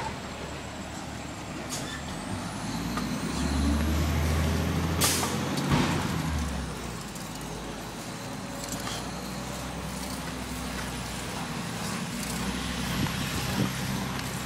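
Garbage truck engine running with a low rumble that swells for a couple of seconds, and a sharp air-brake hiss about five seconds in.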